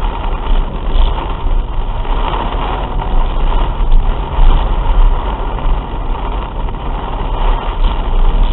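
Torrential rain pelting a car's roof and windshield, heard from inside the moving car, over a low rumble of the car and its tyres on the waterlogged road.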